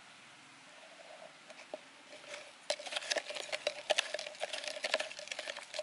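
Metal spoon clicking and scraping quickly against a container as salt is measured and mixed into the homemade repellent mixture, a few light ticks at first, then a dense, rapid run of clinks from about two and a half seconds in.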